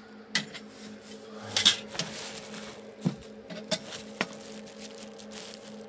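A handful of light metallic clicks and knocks from a hand handling the metal front of rack-mounted Dell servers, over a steady hum.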